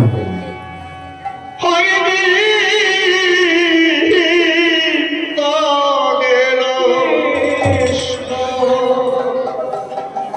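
Bengali devotional kirtan music. After a quieter first second and a half of held tones, a loud melody with a wavering vibrato comes in about two seconds in and carries on.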